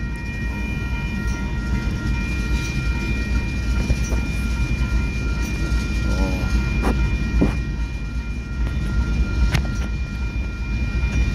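Freight train of tank cars rolling past a grade crossing, heard from inside a car: a steady low rumble of wheels on rail, with a few sharp clicks at irregular moments.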